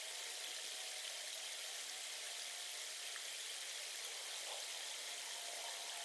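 Steady, even outdoor background hiss, with faint wavering tones drifting in and out.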